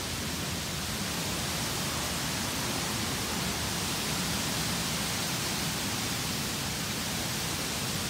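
Steady rushing of water from mountain cascades running full and overflowing.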